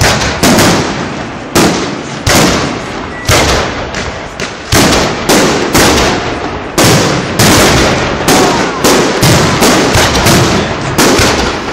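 Fireworks display: aerial shells bursting overhead in quick succession, about one to two loud bangs a second, each fading off before the next.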